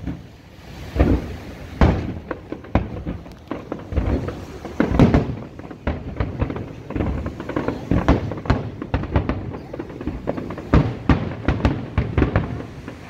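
Aerial fireworks display: shells bursting in quick, irregular succession, dozens of sharp bangs and crackles, loudest about five seconds in.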